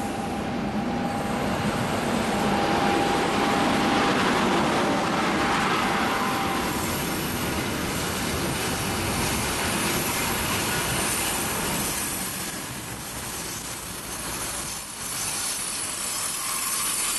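Flåmsbana passenger train, hauled by an NSB El 17 electric locomotive, rolling slowly past on the rails: steady wheel and running-gear rumble of the locomotive and carriages, with a thin high wheel squeal over the first several seconds.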